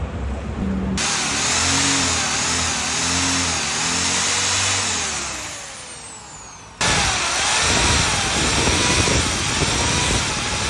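Motorcycle engine running and revving, its pitch rising and falling repeatedly. It fades away, then a louder run of the engine cuts in abruptly about seven seconds in.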